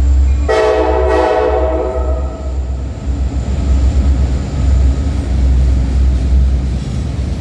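CSX freight locomotive's air horn gives a horn salute: one chord blast about half a second in, lasting about two seconds and fading. A heavy low rumble of the train rolling past runs underneath.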